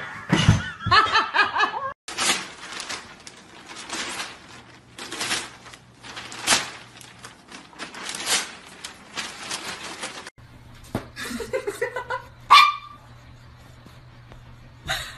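A person laughing in repeated short, breathy bursts.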